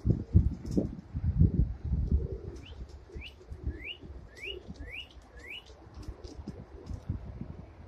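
A small songbird gives a string of short rising chirps, about six in three seconds, with faint pigeon cooing underneath. Low rumbling bumps on the microphone are loudest in the first two seconds.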